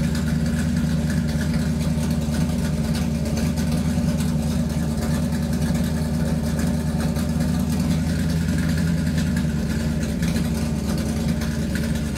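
Vehicle engine running steadily at an even pitch, with a constant low hum.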